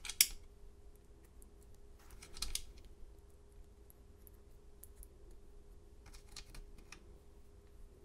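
Small metal clicks and taps of brass lock pins and a key being handled in a Schlage deadbolt plug as the pins are loaded in over the freshly cut key. There is a sharp click right at the start, a short rattle about two and a half seconds in and a few light ticks around six to seven seconds in, over a faint steady hum.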